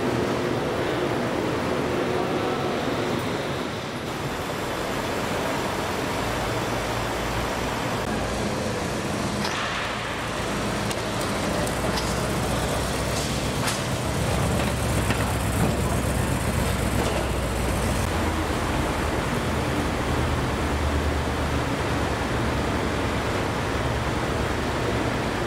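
Classic car engines running as the cars are driven out of the show hall. A low engine rumble grows heavier about halfway through.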